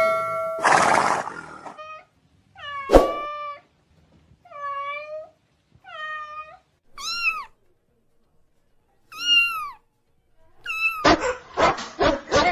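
A cat meowing about six times, each meow high-pitched and rising then falling in pitch, with pauses between them. A loud rush of noise comes first, and a rapid run of short sharp sounds follows near the end.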